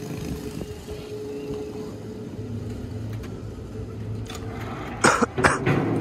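Wood-saw machinery running steadily with a low hum and a faint held tone, then two loud knocks about half a second apart near the end.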